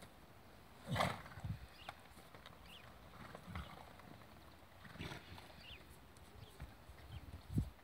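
Horses moving about a soft dirt paddock: scattered dull hoof thuds, with a louder noisy burst about a second in as a lying white mare heaves herself up onto her feet.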